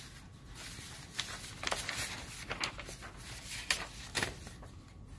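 Faint paper-handling noise in a small room: a few scattered light clicks and rustles over quiet room tone.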